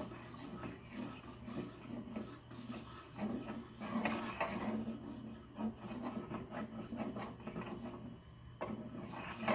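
Plastic fidget spinner being spun and pushed around on a wooden tabletop, rubbing and scraping against the wood in irregular spells.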